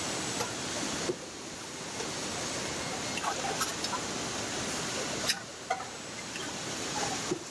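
Car assembly-line factory noise: a steady rushing hum of machinery and air, with a few short metallic clicks and clanks from the wheel-fitting equipment. The background level changes abruptly a few times.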